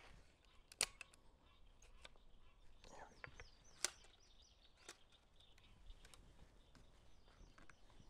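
A few sharp metallic clicks from handling the Marlin Model 60 .22 rifle, the loudest about a second in and near four seconds, against near-silent outdoor quiet. A few short bird chirps come around three seconds in.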